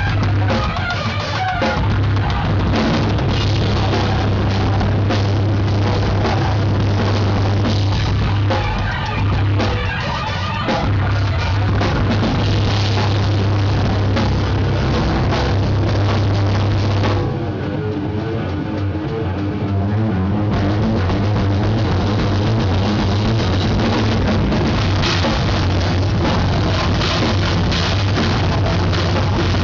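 Live rock band playing loud, heard from right beside the drum kit, with the drums close and prominent. A little past halfway the band drops to a quieter, thinner passage for about three seconds, then comes back in at full volume.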